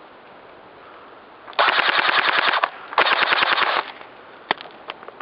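Pulse R72 airsoft rifle firing two full-auto bursts, each about a second long, a rapid even rattle of shots with a short gap between them, aimed at an opponent who is hit.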